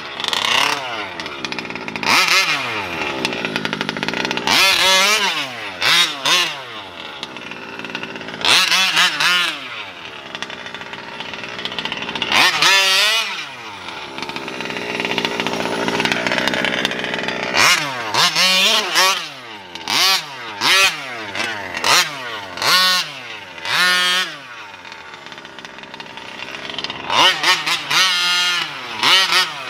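Losi 5T 1/5-scale RC truck's gasoline two-stroke engine being run hard, its pitch rising and falling in repeated throttle bursts with drops back toward idle between them. It goes quieter for a few seconds about three quarters through, then revs hard again near the end.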